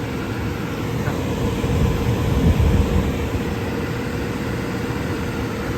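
Furnace blower running steadily: a rush of moving air with a steady hum. There is no rattling or scraping, now that the fallen duct insulation liner has been glued back in place.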